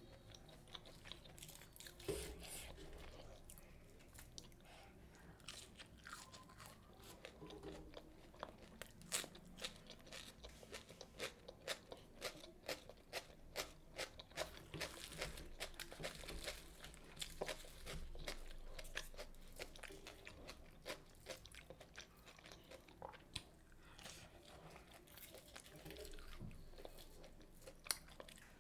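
Close-miked eating: a person chewing and biting crisp food, with many sharp crunches in quick succession through the middle and sparser chewing around them.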